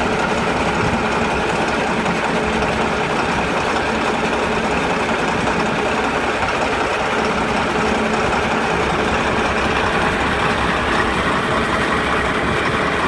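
Bulldozer's diesel engine running steadily at an even pitch and level.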